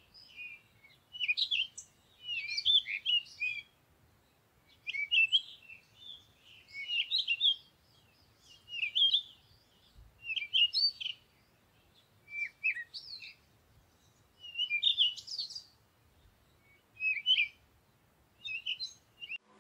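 Birds chirping: short twittering song phrases, high-pitched and quickly warbling, repeating roughly every two seconds.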